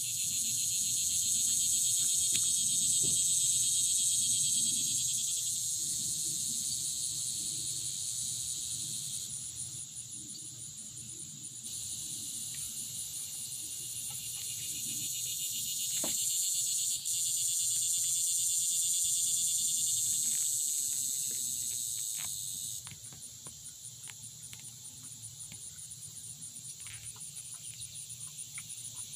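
Outdoor summer insect chorus: a high, continuous, finely pulsing buzz of many insects, its level dropping and coming back abruptly a few times.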